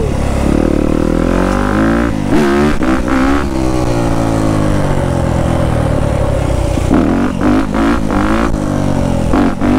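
Yamaha YZ250F dirt bike's single-cylinder four-stroke engine revving up and down as it is ridden and lifted into a wheelie, with throttle blips about two seconds in, around seven seconds and near the end.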